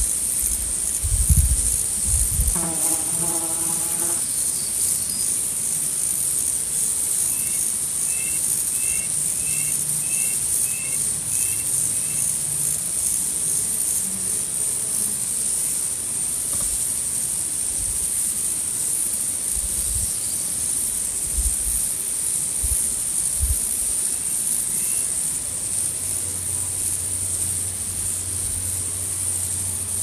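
Steady high-pitched insect chorus. About a third of the way in come seven short chirps, about two a second, and a low hum comes in near the end.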